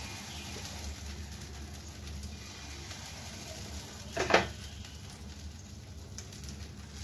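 A steady low hum with one short, loud knock about four seconds in, as a steel ladle is dipped back into the dosa batter.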